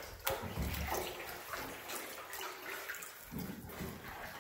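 Canoe paddles dipping and pulling through still water inside a narrow rock tunnel, the splashes and drips echoing off the rock walls. There are a couple of light knocks near the start.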